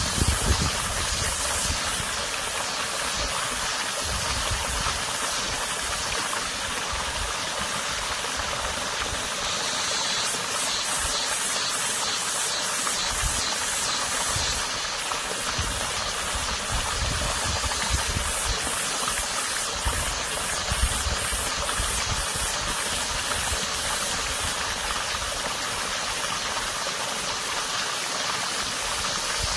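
Small stream of running water rushing steadily, with a cicada's rapid pulsing call over it.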